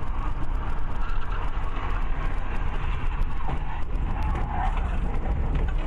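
Steady cabin noise of a car driving at highway speed, heard through a dashcam's microphone: a low, even engine and road noise with tyre hiss.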